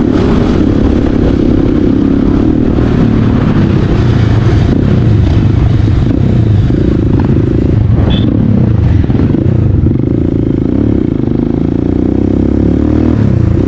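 Motorcycle engine running while riding a rough dirt track, its pitch rising and falling with the throttle, with clatter from the bike over the bumps.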